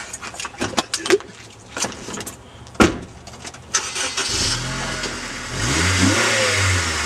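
A few sharp knocks and clicks, then a car engine starts about four seconds in and revs up, its pitch rising and staying up.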